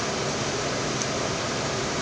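Steady rushing noise, like a running fan or air conditioner, with one faint click about halfway through.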